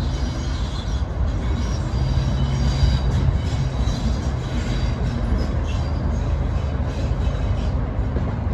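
Class 37 diesel locomotive approaching slowly, its English Electric V12 diesel engine giving a steady low rumble, with a high-pitched whine coming and going over it.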